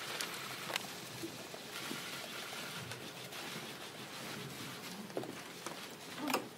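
Press-room hubbub as a news conference breaks up: a steady murmur of people moving and shuffling, with a few sharp clicks.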